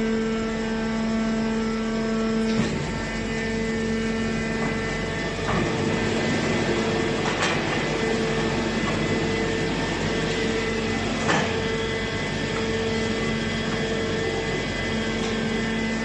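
MC630 hydraulic scrap metal baler and a loading excavator running: a steady machine hum, with a tone that pulses about once a second from around six seconds in. A few sharp metal clanks come through it, the loudest about eleven seconds in.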